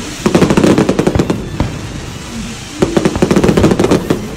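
Aerial fireworks going off in rapid strings of sharp, crackling pops. There are two volleys, one starting just after the start and lasting about a second and a half, and another from about three seconds in.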